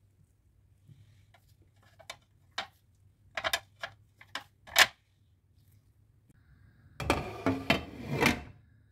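Cookware and utensil clatter at a pan on a gas hob: a run of sharp clicks and taps, then a denser clattering about seven seconds in as a glass lid is set on the pan.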